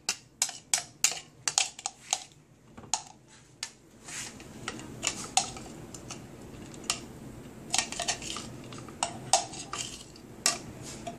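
A spoon scraping and tapping against a clear plastic container, knocking out minced garlic: irregular sharp clicks and scrapes, sparser for a couple of seconds in the middle.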